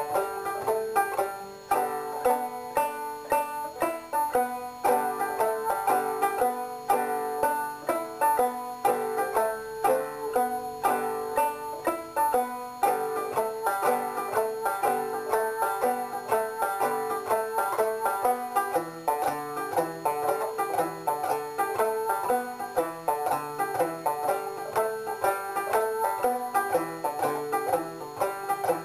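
Background music led by a fast-picked banjo, with a quick, steady run of plucked notes.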